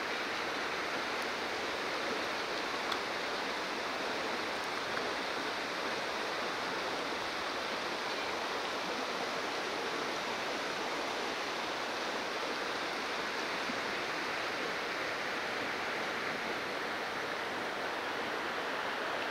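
Steady rush of flowing river water, unchanging throughout.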